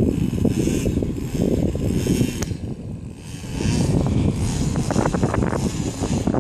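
Strong gusting wind buffeting the microphone, a loud uneven rumble that eases for a moment about three seconds in and then builds again, with a single sharp click about two and a half seconds in.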